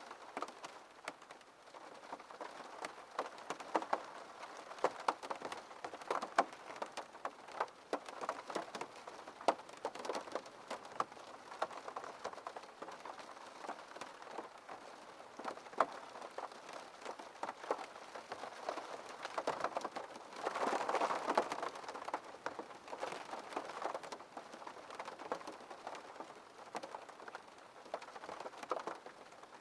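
Rain pattering on a window pane, a dense patter of individual drops ticking, with a heavier, denser rush of rain about two-thirds of the way through.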